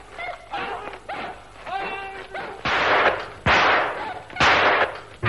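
Radio-drama sound effect of a large dog barking and snarling repeatedly, then three revolver shots about a second apart, each with an echoing tail. The shots bring down the attacking hound.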